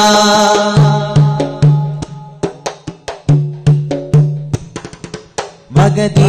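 Instrumental interlude of a Malayalam devotional song: a held-note melody over hand-drum strokes and a low three-note bass figure that comes round about every two and a half seconds.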